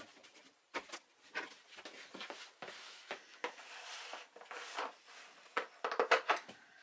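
Irregular knocks, clicks and rustling, with a quick cluster of louder knocks about six seconds in.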